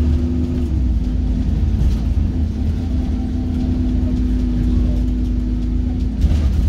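ADL Trident 2 double-decker bus heard from inside the saloon while under way: a steady engine and driveline drone with a held hum, the low rumble easing about a second in. A brief knock comes near the end.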